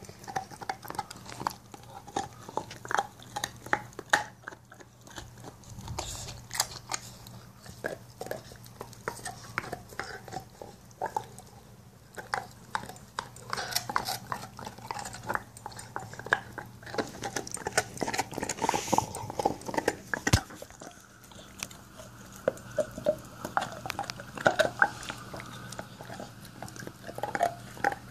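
Pit bull gnawing a lamb bone: a long run of irregular crunches and clicks of teeth on bone.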